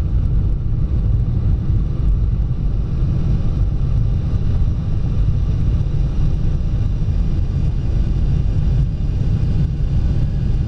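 Jet airliner's engines at takeoff power, heard from inside the cabin as a steady, loud, low roar together with the rumble of the takeoff roll.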